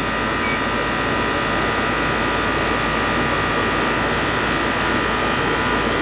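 A 2-ton air conditioning system running steadily: a continuous mechanical hum and whine with air-rush noise, holding level throughout. A short electronic beep from the digital manifold gauge's button comes about half a second in.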